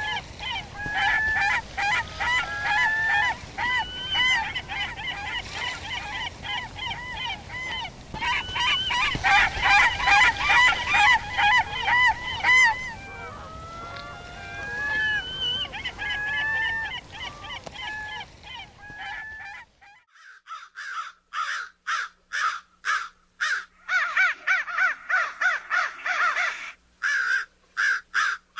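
A flock of geese honking, many calls overlapping, loudest about a third of the way in. About two-thirds of the way through it cuts off suddenly and gives way to crows cawing in quick runs of separate caws.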